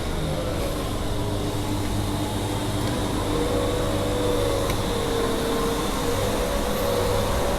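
Milking-shed machinery running steadily: the milking plant and rotary milking platform give a constant low hum, with a faint wavering whine drifting up and down over it.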